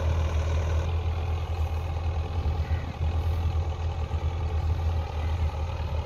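Belarus 510 tractor's diesel engine running steadily while it pulls a loaded potato planter through the rows.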